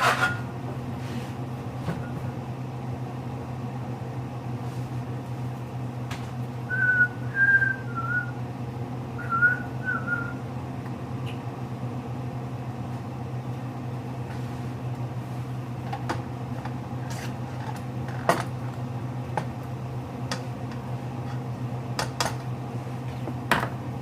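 A person whistles a short run of about half a dozen quick notes, about seven seconds in, over a steady low hum. Scattered light clicks and knocks come through.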